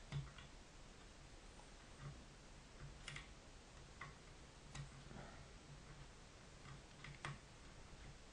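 Faint, irregular light clicks and ticks of a lock pick working the pin stacks of a spool-pinned Master Lock core under tension, roughly one click a second.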